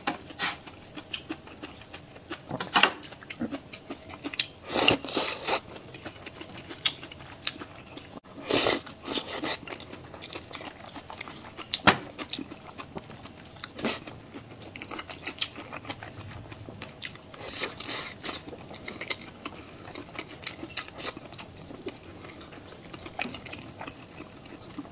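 A person eating close to the microphone: chewing and biting food, with irregular crunches and wet mouth clicks and a few longer noisy bursts.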